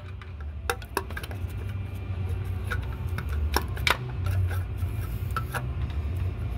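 Irregular metal clicks and taps from hand tools working a small bolted inspection cover off a diesel engine's bell housing, over a steady low hum.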